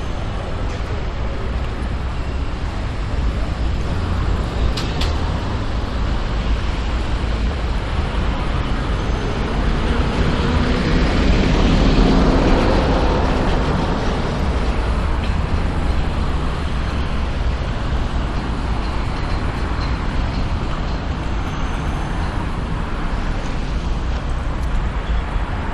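City street traffic noise with a steady low rumble. A vehicle passes and is loudest about halfway through.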